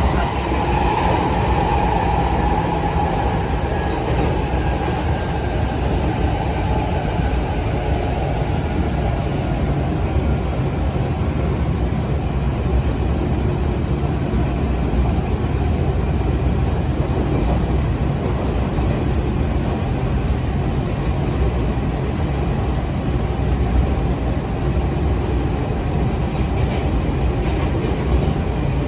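Izukyu 2100 series (Resort 21EX) resistance-control electric multiple unit running, heard inside the car: a steady rumble of wheels on rail, with a whine that falls and fades over the first few seconds.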